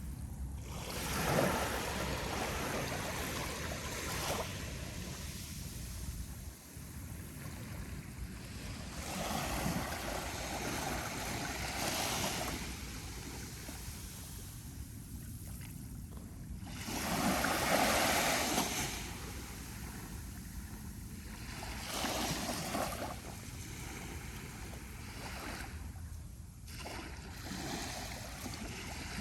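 Small, gentle ocean waves breaking and washing up the sand on a calm sea, rising and falling every few seconds, the largest wash coming a little past halfway. A low, steady rumble of wind on the microphone runs underneath.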